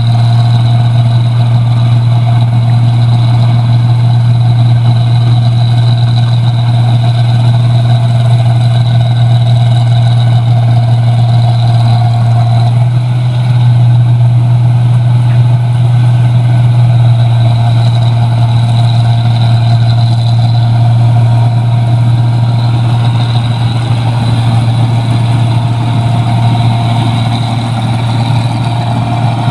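Rice combine harvester running steadily under load: a loud, deep, unchanging engine drone with steady higher whines over it.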